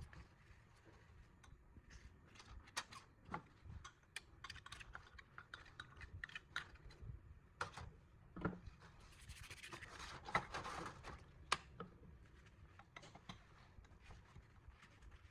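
Faint hand work in a workshop: scattered light clicks and taps, with a longer stretch of scraping and rubbing about nine to eleven seconds in.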